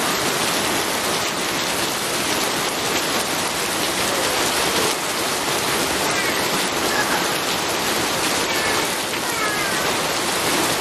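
Steady heavy rainfall, an even hiss of drops at a constant level. A few faint short chirps appear in the second half.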